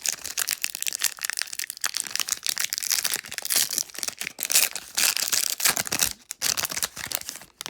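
Foil Pokémon booster pack wrapper being torn open and crinkled by hand: a continuous run of sharp crackles and crinkles that stops just before the end.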